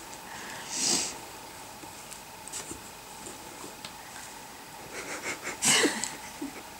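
A dog's sniffs and breathy puffs as it nuzzles close: one short breath about a second in, then a quick run of small mouth smacks and a louder puff near the end.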